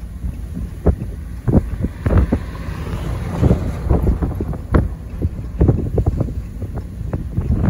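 Strong wind buffeting the microphone: a heavy low rumble broken by frequent irregular gusty thumps.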